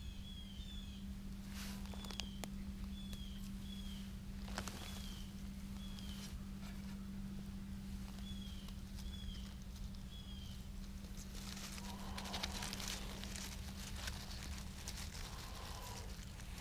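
Crackling and rustling of a dry grass and bark tinder bundle handled by hand, with sharp crackles now and then and a longer, denser stretch of rustling in the second half. Behind it a bird repeats a short, high, downward-sliding chirp every second or so.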